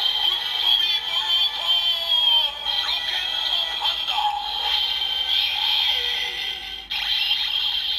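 Kamen Rider Build toy transformation belt playing the Rocket Panda Full Bottles' Best Match sound: electronic music with a synthesized sung voice, broken by a short gap about seven seconds in.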